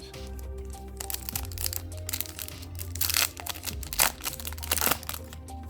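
Yu-Gi-Oh booster pack wrapper being crinkled and torn open, over background music with a steady bass note; the loudest rustles come about three and five seconds in.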